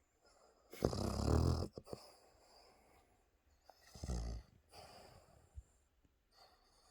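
A sleeping dog snoring: two loud snores, one about a second in and another about four seconds in, with quiet breathing between them.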